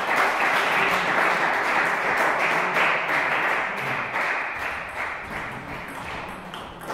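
Applause from spectators, loud at first and dying away over the last few seconds, with faint table tennis ball clicks from a rally underneath.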